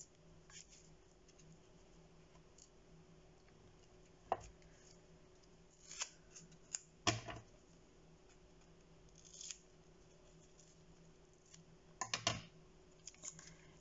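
Scissors cutting craft material with a handful of short, separate snips and scrapes. The loudest come about seven seconds in and near the end, with quiet between.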